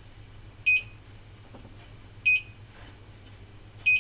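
Soldering station's touchscreen beeper giving three short, identical high beeps about a second and a half apart, each one confirming a touch on the display. A faint steady hum lies underneath.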